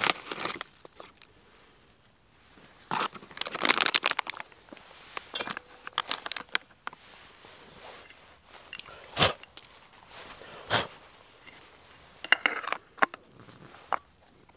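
Black plastic bag crinkling and rustling in gloved hands in several bursts. From about nine seconds in come a few short, sharp clicks and clinks as the metal kettle and its lid are handled.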